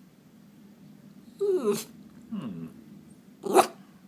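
Miniature schnauzer whining in short calls that fall in pitch, stressed at a cat it has spotted, with a short sharp sound, the loudest of them, about three and a half seconds in.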